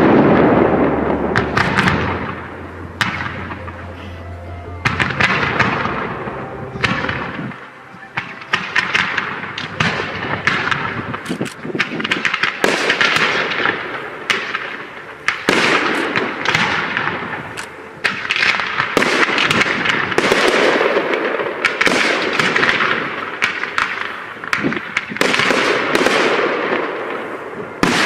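Aerial fireworks display, shells bursting one after another in sharp bangs, many trailing off in crackle. A deep rumble underlies the first several seconds.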